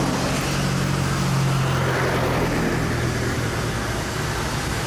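Street traffic: a car passing close by, its low engine hum fading about halfway through, over a steady wash of road noise.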